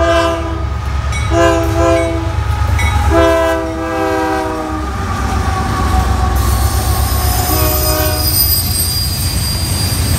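Union Pacific diesel locomotive blowing its multi-note air horn as it passes: a blast that ends just after the start, two more close together with the second one longest, and a short one about eight seconds in, over the deep rumble of the engine. From about six seconds in, the passing autorack cars add a thin, steady, high wheel squeal.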